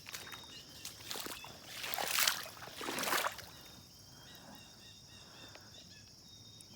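Boots wading through ankle-deep floodwater, with two splashing steps about two and three seconds in. A steady insect drone runs underneath.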